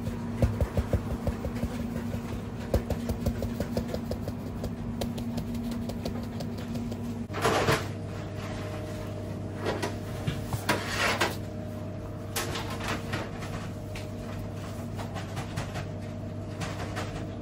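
Bakery kitchen work over a steady equipment hum: a run of quick light taps in the first few seconds from a metal shaker dusting topping over rolls, then irregular scraping and rustling as a spatula spreads paste on a baguette. Two short, louder noisy bursts come about 7 and 11 seconds in.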